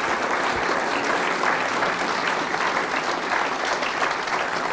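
An audience applauding: many hands clapping in a dense, steady patter.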